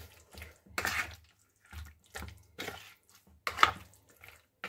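A spoon being worked through raw chicken pieces in a thick yogurt and chilli-garlic paste marinade, in a plastic bowl. It makes a run of short, wet squelching strokes, about one or two a second, with the loudest about three-quarters of the way through.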